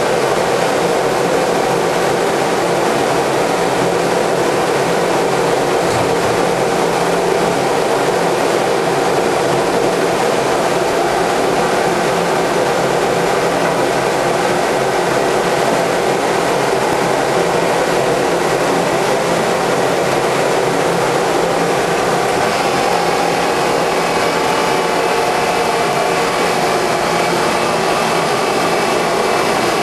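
Hydraulic automatic copying wood lathe running steadily, with a dense mechanical hum made of several steady tones. About two-thirds of the way through, a higher hiss joins it.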